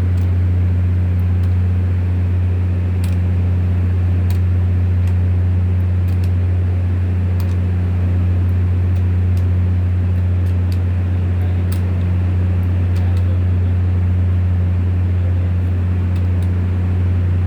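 Volvo Penta TWD1463GE six-cylinder turbo-diesel generator engine running at a steady speed with a constant low drone; the engine has a misfire.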